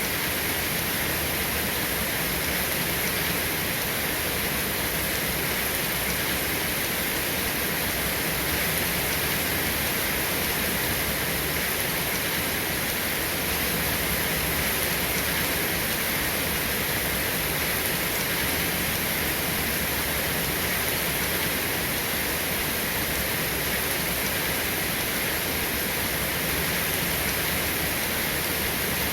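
Steady rain, an even unbroken hiss with no thunder or separate drops standing out.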